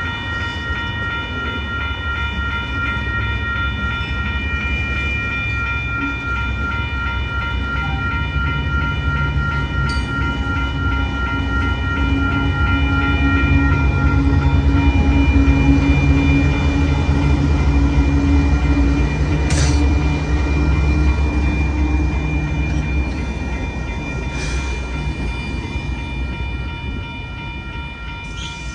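Western-Cullen-Hayes railroad crossing bell ringing steadily, its even tones running throughout. Under it a train passes with a heavy low rumble that swells to its loudest about halfway through and eases off toward the end, with a few sharp clicks along the way.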